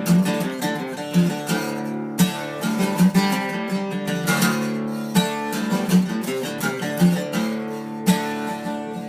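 Acoustic guitar playing an instrumental blues passage, strummed with a strong accented stroke about once a second over sustained notes.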